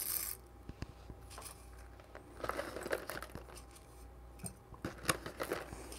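Whole coffee beans dropped by hand a few at a time into a small stainless-steel dosing cup and shifted about with the fingers, giving scattered soft clicks and rattles at irregular moments.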